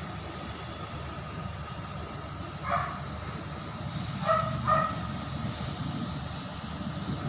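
Steady low hum with a dog barking three times in the background, once and then twice close together.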